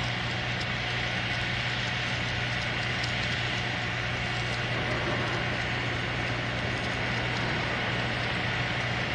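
Engine-powered abrasive tool grinding steel rail, a steady continuous grind with no breaks, over a steady low engine hum.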